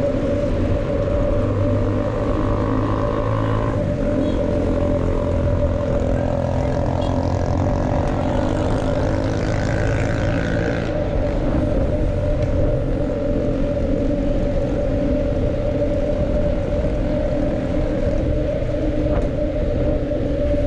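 Wind buffeting the microphone while riding, a dense steady rumble, with a steady high hum underneath.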